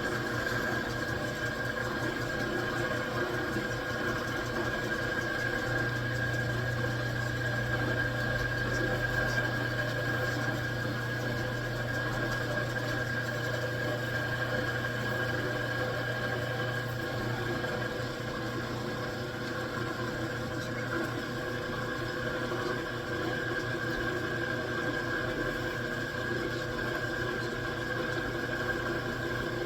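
Metal lathe running steadily with a high-speed steel tool taking a light cut, a constant machine hum with steady whining tones. The low hum grows stronger from about six seconds in and eases back near seventeen seconds.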